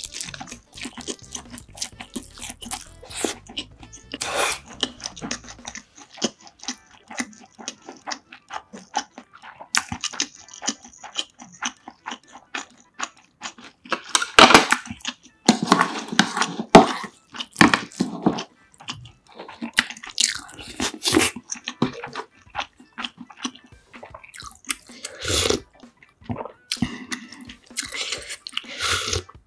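Close-miked eating sounds: steady chewing with wet mouth smacks and small clicks of a spoon and chopsticks against bowls. About halfway through come several louder wet slurps or sips of soup.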